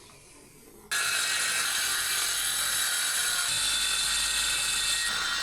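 A power tool starts suddenly about a second in and runs steadily at full speed, a high-pitched whir.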